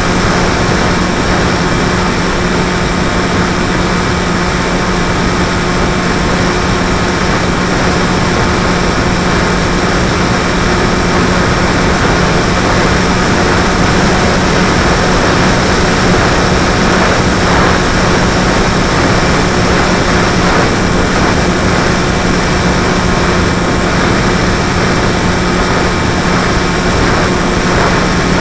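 Electric radio-controlled model aircraft's motor and propeller running steadily, heard from the camera on board: a held motor hum under a dense rushing noise.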